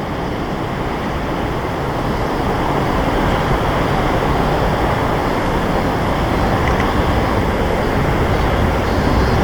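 Boeing 747-8F jet engines, a steady rushing roar that grows slowly louder as the freighter comes in to land, mixed with strong wind buffeting the microphone.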